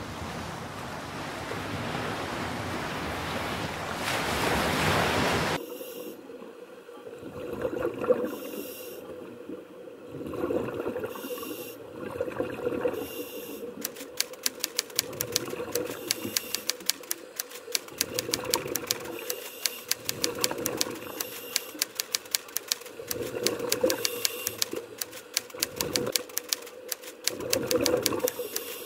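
Typewriter key clicks as a sound effect, a fast even run starting about halfway through and going on, over a low whooshing swell that comes back every two to three seconds. It opens with a steady rushing noise like surf that stops suddenly after about five seconds.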